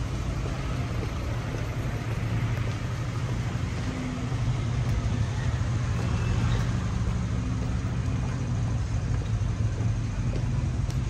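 Street traffic noise: a steady low hum of road vehicles running and idling.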